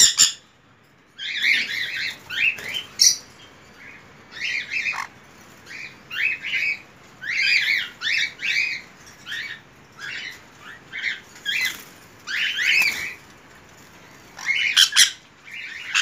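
Young sun conures squawking, a run of short, harsh calls repeated every half second to second.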